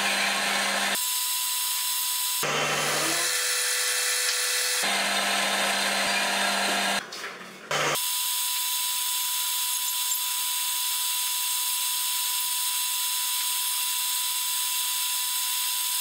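Metal lathe running while a drill bit in the tailstock chuck bores into the end of the spinning metal rod: a steady mechanical whir with a thin high whine. The sound jumps abruptly several times in the first half, then holds steady.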